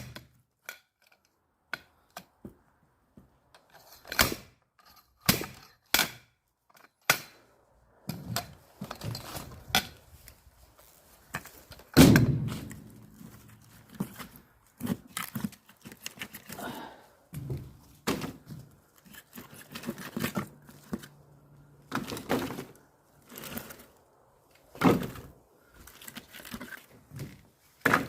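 Axe splitting firewood: a run of sharp, irregularly spaced chopping strikes on wood. The loudest blow lands about twelve seconds in and leaves a low ringing tail.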